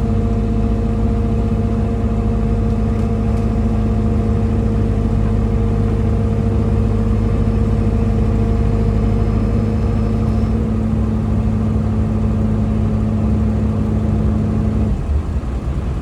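Excavator's diesel engine running steadily at working speed, then dropping to a lower speed about fifteen seconds in.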